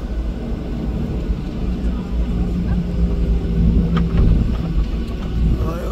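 Cabin noise of a Jeju Air Boeing 737 on the ground before takeoff: the jet engines running with a steady low rumble and a steady hum, heard from inside the passenger cabin.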